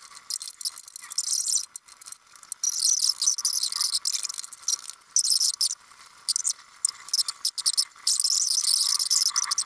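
Fast-forwarded workshop sound: a dense, rapid, high-pitched chittering of small clicks and scrapes with the low end cut away, which comes across as cricket-like.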